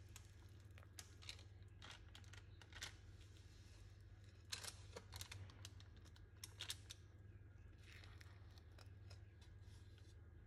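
Faint scraping and rustling of a spatula pushing thick cake batter out of a glass bowl onto parchment paper: a scatter of short, soft scrapes, busiest around the middle, over a low steady hum.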